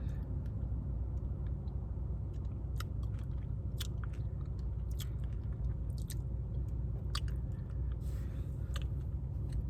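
A person eating close to the microphone: biting and chewing, with sharp clicks now and then, over a steady low hum.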